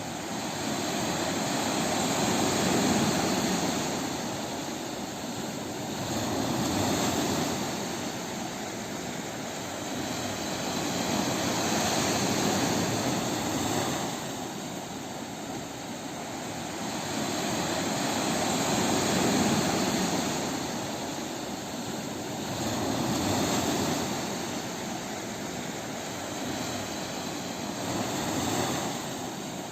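Ocean waves on a beach: a continuous wash of surf that swells and falls back every few seconds, about six surges in all.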